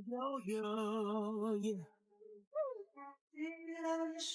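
A singing voice, most likely music or a vocal effect added in editing: a long held note with vibrato, a short sliding note, then another held note.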